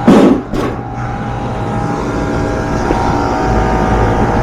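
A metal access panel of a commercial rooftop HVAC unit set down with two clanks at the start, then the steady hum of running rooftop HVAC machinery with a constant mid-pitched tone.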